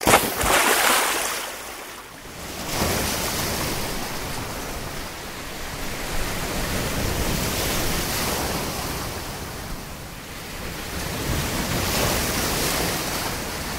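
Sea waves breaking and washing in the surf, swelling and easing in a few long surges.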